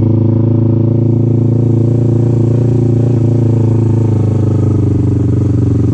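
Kawasaki Ninja 650's parallel-twin engine running steadily, its pitch holding nearly constant.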